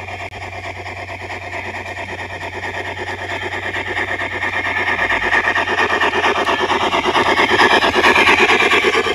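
G-scale model locomotive running on garden-railway track and drawing closer, getting steadily louder: the whir of its electric motor and gears with a fast, rasping rattle of wheels on the rails, over a steady low hum.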